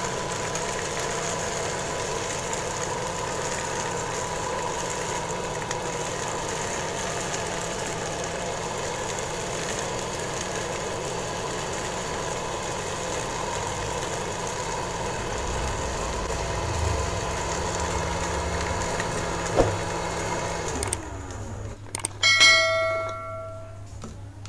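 Mini DC motor of a homemade plastic-bottle vacuum cleaner running steadily with a whine, then cutting off about 21 seconds in. A short, loud bell-like ring follows a second later.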